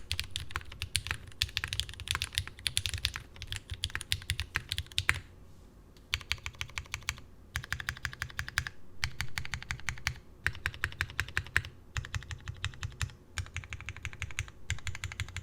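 Typing on a Geonworks F1-8X gasket-mounted mechanical keyboard with lubed Cherry MX Hyperglide Black linear switches, an aluminium plate and GMK keycaps: a fast stream of keystrokes in runs of about one to two seconds, broken by a pause of about a second some five seconds in and shorter pauses after.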